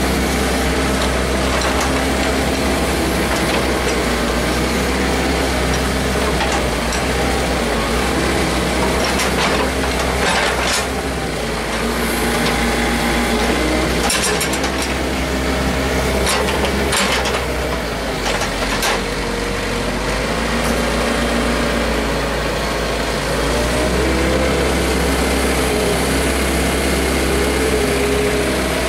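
Daewoo Solar 50W wheeled mini excavator's diesel engine running steadily while the machine digs, its pitch shifting a little with the hydraulic load. Several sharp metallic clanks come in the middle stretch.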